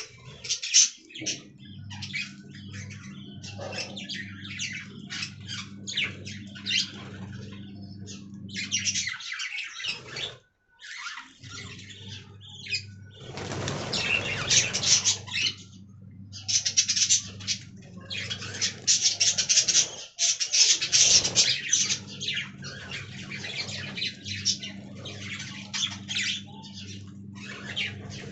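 Budgerigars chirping and chattering, a dense run of short high calls, with a louder rush of noise near the middle. A steady low hum runs underneath and drops out twice.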